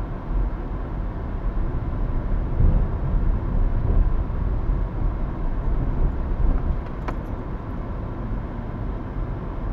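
Car driving slowly in traffic, heard from inside the cabin: a steady low engine and road rumble that swells a little around the third and fourth seconds. A single sharp click sounds about 7 seconds in.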